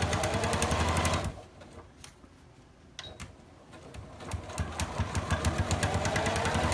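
Domestic sewing machine stitching a seam through layered cotton fabric, a fast even run of needle strokes. It stops about a second in, a single click follows near the middle, then it starts again and builds back up to full speed.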